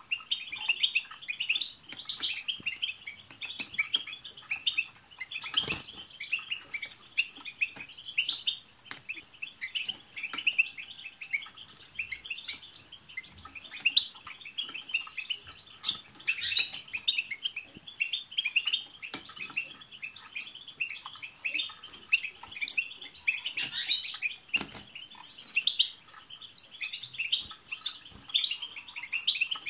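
A group of European goldfinches chattering and twittering together in a dense, continuous run of quick notes. About 20 seconds in comes a short series of higher, thin calls.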